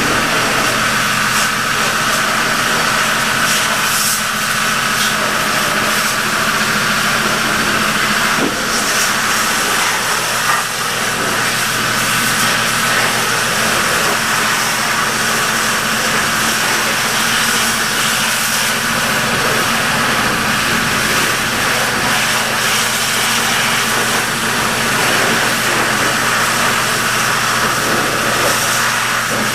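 Pressure washer running steadily at full output while spraying down a Ford 4R100 automatic transmission case.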